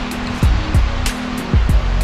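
Background music with a steady beat of deep drum hits and sharp cymbal hits over held low notes.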